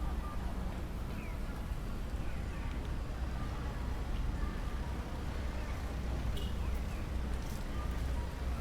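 Outdoor ambience: a steady low rumble with faint, short falling chirps every second or so.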